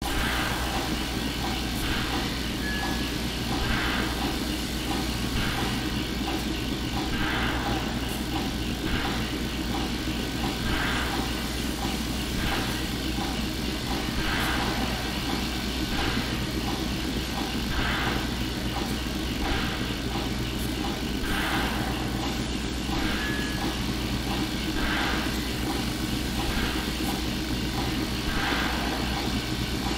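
Steady low mechanical drone with a soft pulse repeating about every two seconds.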